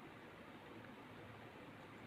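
Near silence: faint steady background hiss, room tone.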